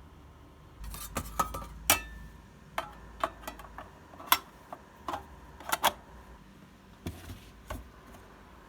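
An irregular series of sharp clicks and knocks of small hard objects being handled, starting about a second in.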